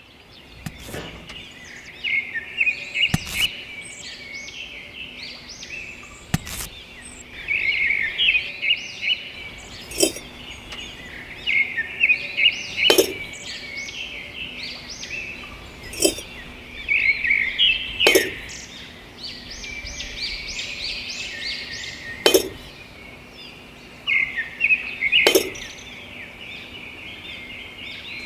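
Many small birds chirping continuously, with a sharp clink or tap every two to three seconds.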